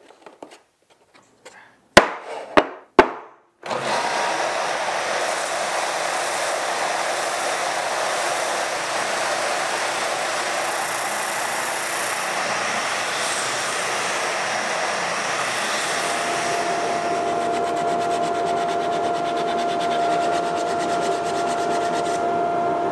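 Oscillating spindle sander running steadily as it sands the edges of a stacked PVC sheet cabinet, a steady tone joining about two-thirds of the way in. Before it starts, three sharp clicks.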